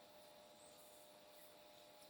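Near silence: faint room tone, a steady low hiss with a faint hum.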